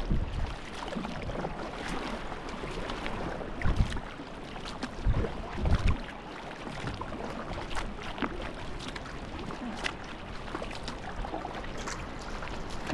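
Rushing water of a small river rapid around a kayak, with paddle splashes scattered through it. A few loud low thumps come about four and five to six seconds in.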